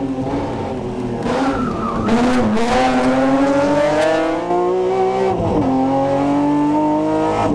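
BMW M3 race car's engine revving hard under acceleration, its pitch climbing, dropping sharply about five seconds in at a gear change, then climbing again. Tyres squeal for a couple of seconds early on the run through the hairpin.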